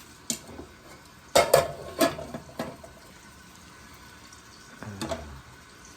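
A spoon clattering and scraping against a cooking pot as chicken gizzards are stirred: a scatter of short knocks, loudest about one and a half to two seconds in, with one more near the end.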